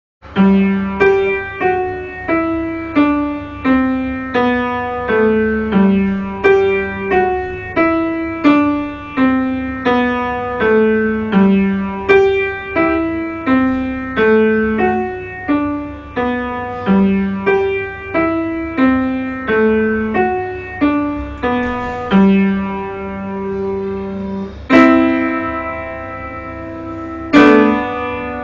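Piano playing a slow melody of single notes, about two a second, in repeated downward-stepping runs. Near the end come two loud struck chords, the last one left to ring on.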